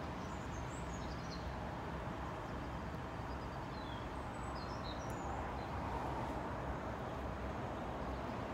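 Steady low outdoor background rumble, with a small bird chirping high above it in short runs near the start and again midway.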